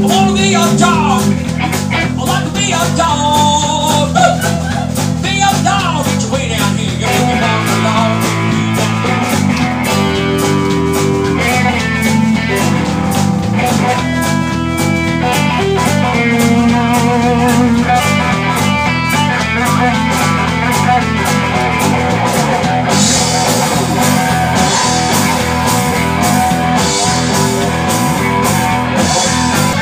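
Live blues-rock band playing loud: electric guitars over a drum kit.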